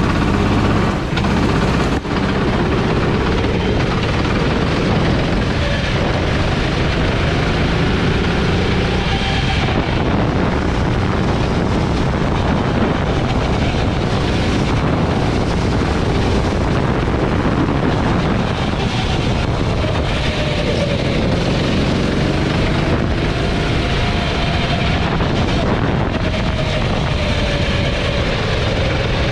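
Gasoline Sodi go-kart engine running hard on track, heard close up from the driver's helmet, its pitch rising and falling as it revs up on the straights and drops off into corners.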